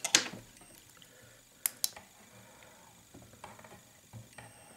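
Light clicks and knocks from small tools being handled at a fly-tying vise: one sharp click right at the start, two quick sharp clicks just before two seconds in, then a few faint ticks.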